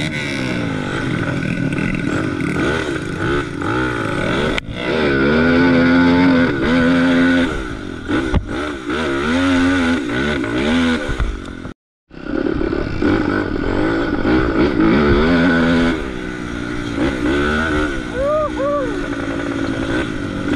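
Kawasaki KX250 dirt bike engine revving up and down repeatedly under load on the muddy trail, the pitch swinging with each twist of the throttle. The sound cuts out for a moment about twelve seconds in.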